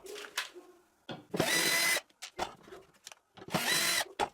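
Power drill-driver running in two short bursts, each under a second, with light clicks and knocks of handling between, while the screws of a metal drawer slide are worked on plywood.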